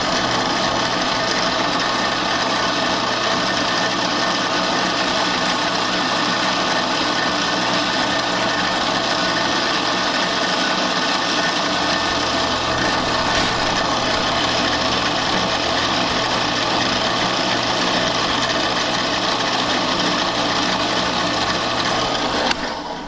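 Drill press running at about 2,000 RPM with a fine Dremel bit, grinding the end of a 13B rotary engine side seal to clearance it against its corner seal: a steady motor hum with a continuous light grinding hiss. The sound drops away sharply near the end as the press is switched off.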